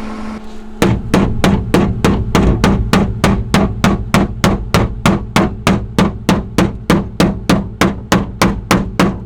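Steady hammering on the sheet-metal wheel pan, sharp metallic blows at about three and a half a second, starting about a second in, as the panel is knocked into place before welding.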